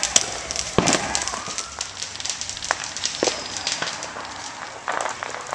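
Consumer fireworks going off: a ground fountain spraying sparks with a rapid run of sharp crackling pops and a louder bang about a second in. The crackles thin out and grow quieter toward the end.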